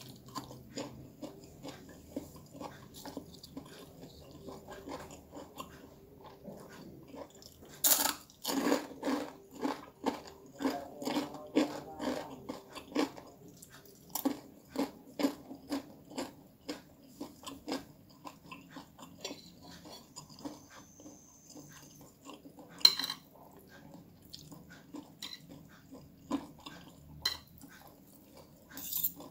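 A person chewing and biting a mouthful of fried noodles and raw chili, with a quick, regular run of crunchy chews from about eight to thirteen seconds in and scattered chewing after. One sharper click stands out a little past the middle.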